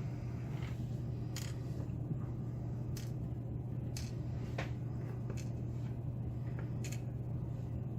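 A few faint, short metallic clicks and ticks from handling the disassembled dimple lock's plug and pins, over a steady low hum.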